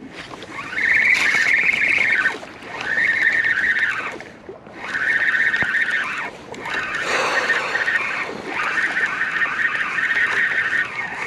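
Spinning reel being cranked in four spells with short pauses, its gears and spool whirring as a lure is retrieved, after a sharp click at the start like the bail snapping shut.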